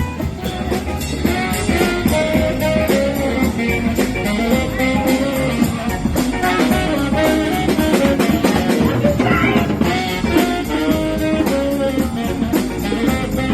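Live band playing an instrumental with drum kit and guitar, in a jazz-blues style.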